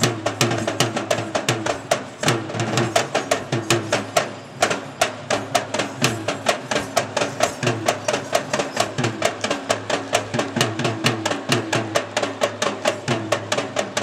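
Sri Lankan folk dance music: a double-headed drum beaten in a fast, even rhythm of about five strokes a second, over a pitched melody, with a brief drop about four seconds in.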